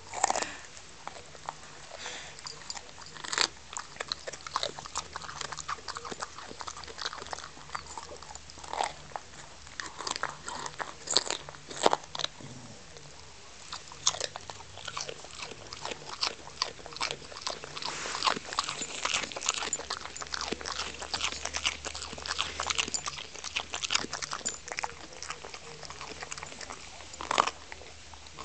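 A dog chewing a raw broccoli stem, with irregular crisp crunches and bites.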